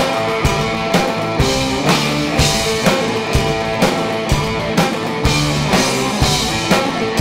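Rock band playing live: a drum kit keeps a steady beat of about two hits a second under sustained guitar chords, with no singing.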